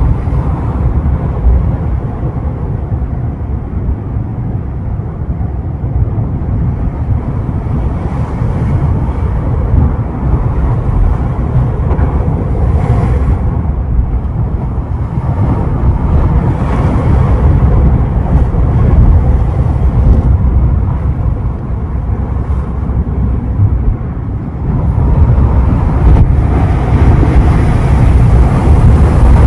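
Ocean surf washing and breaking, a continuous low rumbling wash with wind buffeting the microphone; it grows louder for the last few seconds.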